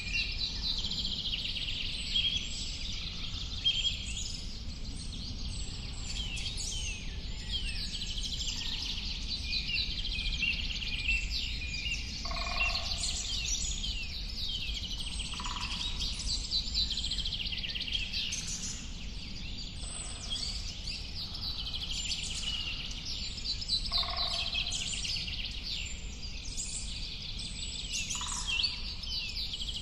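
Many birds chirping and singing at once in a dense, overlapping chorus. A lower call breaks in every few seconds, over a steady low background noise.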